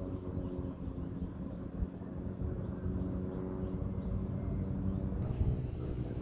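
Steady low outdoor rumble, with a faint high-pitched chirp repeating about once every second and a quarter.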